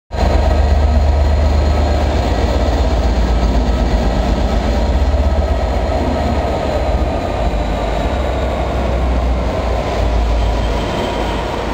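Class 67 diesel locomotive's EMD two-stroke V12 engine running as the locomotive pulls out and passes close by: a loud, steady, deep rumble that eases slightly near the end as it moves away.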